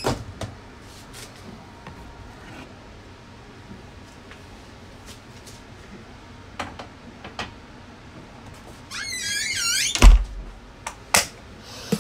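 Chest freezer being loaded and closed: a few light knocks early on, then a wavering squeak as the lid is lowered about nine seconds in, and a heavy thump as the lid drops shut just after.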